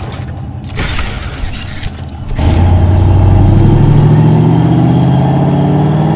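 Car engine sound effect: after a stretch of noisy whooshing, a deep engine note comes in suddenly about two and a half seconds in and runs on steadily.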